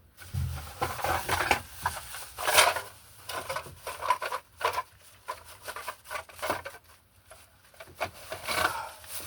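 Irregular rustling, scraping and light knocks of someone handling things and shifting about, in uneven clusters with brief lulls.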